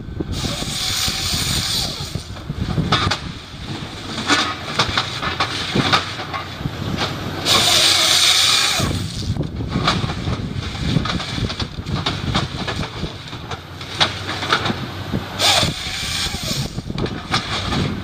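Machinery working, with repeated bursts of hiss and scattered knocks over a rough running noise.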